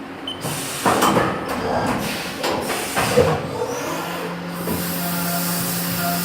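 Haas VF-2SS CNC vertical machining centre at work on aluminium: irregular noisy knocks and bursts, then from about four seconds in a steady low humming tone with a constant hiss.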